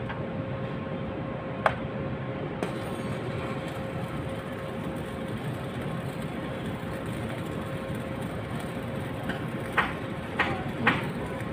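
Steady machinery running with a constant hum. There is a sharp metallic click a little under 2 seconds in, and three or four more near the end.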